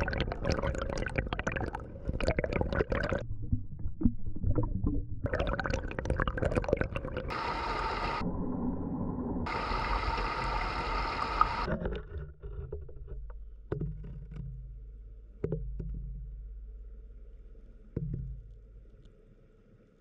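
Muffled water rushing and crackling, picked up by a camera in an underwater housing in a stream, changing abruptly at cuts between clips. It thins to a low hum with a few sharp clicks and fades out near the end.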